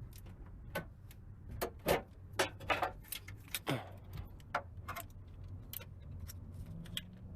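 Irregular metallic clicks and clinks of hand tools and small parts being worked loose on a car being stripped for scrap, over a steady low hum.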